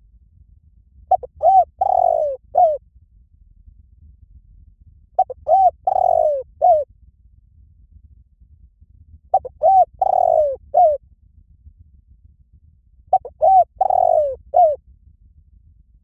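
Spotted dove cooing: four call phrases about four seconds apart. Each phrase is two short coos, a longer drawn-out coo, then a short final coo.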